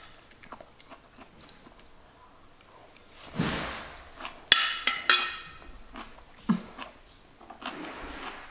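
Close-up eating sounds: a brief hiss, then a few sharp ringing clinks of a metal spoon against a ceramic plate, followed by soft chewing of a mouthful of mushroom and zucchini stir fry.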